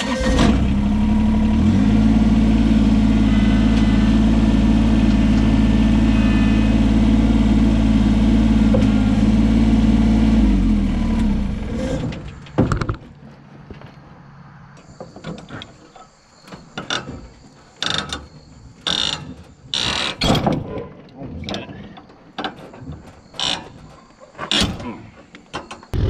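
Kubota BX23S compact tractor's three-cylinder diesel starts, runs steadily for about ten seconds with a slight rise in pitch early on, and is shut off. Scattered short metallic clanks and knocks follow.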